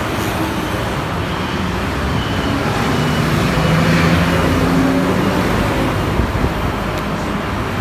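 Road traffic on a city street, with a city bus driving past close by; its engine hum swells to its loudest about halfway through.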